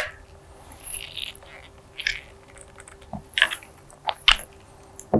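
Hand tools clicking and scraping on a battery terminal's bolt and nut as it is tightened down, in irregular short clicks.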